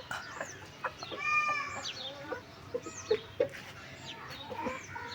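Backyard chickens clucking and calling, with one drawn-out call about a second in. Short high chirps come a few times throughout.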